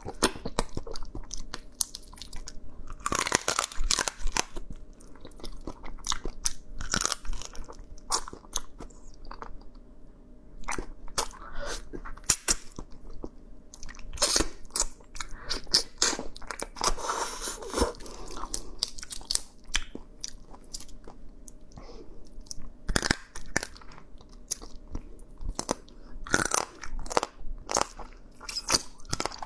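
Close-up eating of a cooked crab: irregular crunching and cracking as the shell and legs are bitten, mixed with wet chewing.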